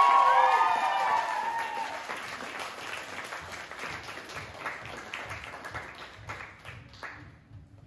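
Small audience clapping and cheering, with high whoops and shouts over the applause for the first couple of seconds; the clapping then thins and dies away toward the end.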